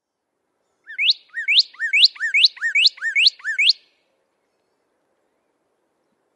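Male northern cardinal singing: a quick run of about seven repeated two-part phrases, each a short falling note followed by a rising whistle, starting about a second in and lasting about three seconds.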